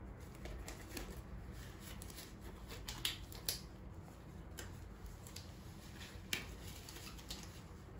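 Disposable examination gloves being pulled onto the hands: soft rubbery rustling with scattered small snaps and ticks, the sharpest about three seconds in and again near six seconds.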